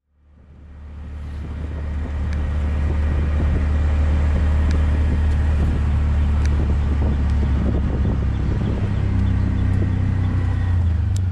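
Moving tuk-tuk heard from inside its carriage: a steady low engine and road rumble, fading in over the first couple of seconds, with a few faint clicks.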